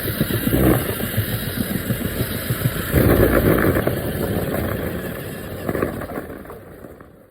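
Rumbling vehicle and road noise, loudest about three seconds in, then fading out to silence at the end.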